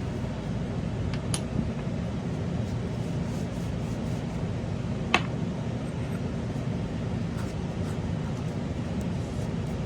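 Steady low room hum, with a few light clicks of small paintball-marker bolt parts being handled; the sharpest click comes about five seconds in.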